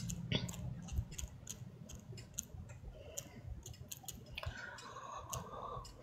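Faint, irregular clicks and ticks, several a second, over a low steady hum.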